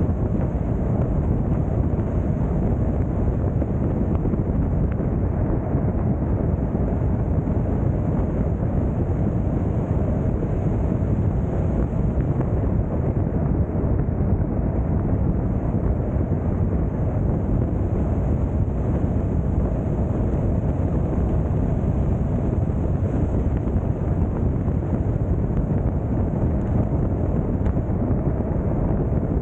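Steady rushing wind and low tyre rumble of a car cruising at freeway speed, unchanging throughout.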